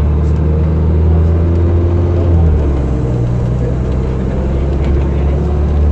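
Diesel engine of an Optare Spectra double-decker bus on a DAF DB250 chassis running under load. The engine note is steady, then drops in pitch about two and a half seconds in.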